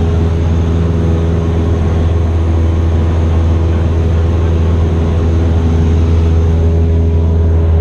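Cessna 172's piston engine and propeller running at steady cruise power, a loud, even drone heard inside the cabin.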